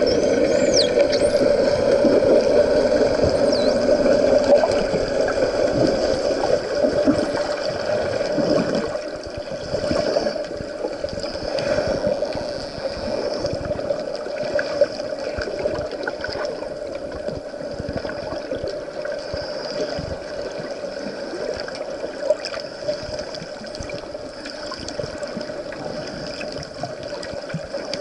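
Underwater sound with dolphins: a few high, arching dolphin whistles in the first second or so, then scattered faint clicks over a steady low hum and water noise.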